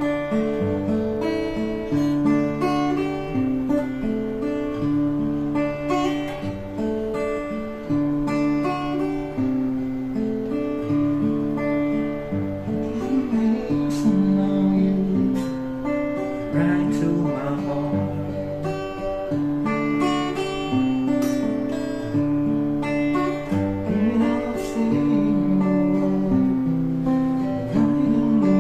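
Clifton A2 Series acoustic guitar played for a sound check: plucked chords with a moving bass line and higher melody notes, changing every second or two.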